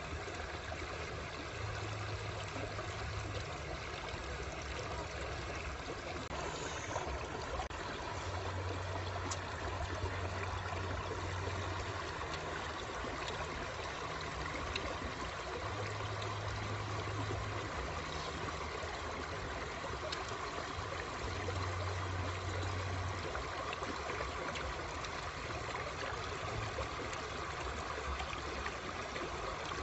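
Shallow stream running over rocks, a steady rush and trickle of water. A low hum comes and goes underneath in stretches of a few seconds.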